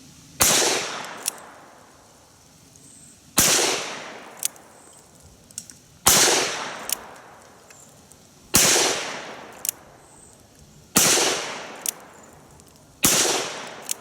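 Six shots from a Ruger Blackhawk single-action .357 Magnum revolver, fired slowly about two to three seconds apart, each with a long rolling echo. A small sharp click comes between most of the shots.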